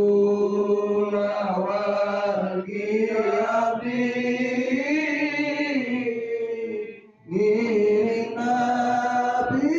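Men's voices chanting a sholawat in praise of the Prophet, in long, drawn-out held notes. The chant breaks off about seven seconds in and starts again.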